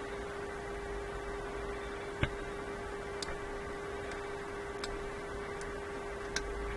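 A few small, sharp metal clicks from the ratchet's parts being handled and fitted, the loudest about two seconds in, over a steady electrical hum.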